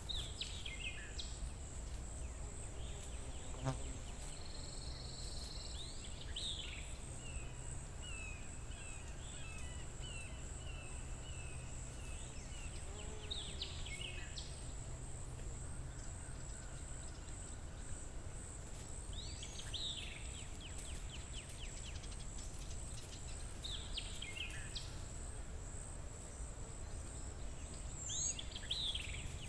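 Forest ambience: a steady high-pitched insect buzz with birds calling over it. Several short calls sweep downward in pitch at intervals, with a run of repeated chirps in the middle, over a low rumble.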